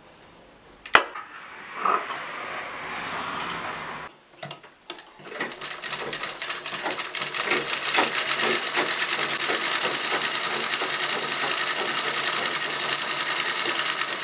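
Sewing machine stitching cotton fabric. A sharp click about a second in, a short softer run, a brief pause, then from about five seconds in it runs steadily at speed with rapid, even stitching ticks.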